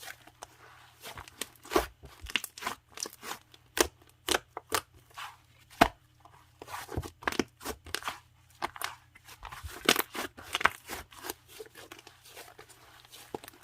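Clay-sherbet slime being squeezed and worked by hand, giving irregular crisp crackles, pops and tearing sounds.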